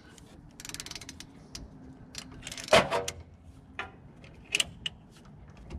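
Ratchet wrench clicking in quick runs as a rear brake caliper bolt is backed out, with one louder short noise about three seconds in. The bolt was only lightly tightened, so it turns out easily.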